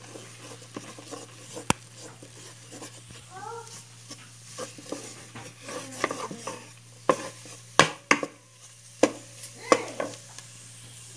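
Spoon stirring and scraping a lumpy paste of cornstarch, margarine, onion and garlic in a pan, with a light sizzle as the starch is toasted in the fat for a white sauce. The spoon knocks sharply against the pan several times, loudest about eight seconds in.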